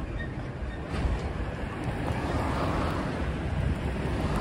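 A medium diesel truck rolling slowly down a gravel drive toward the listener, its engine running low and its tyres crunching on the gravel. The sound grows louder as the truck nears.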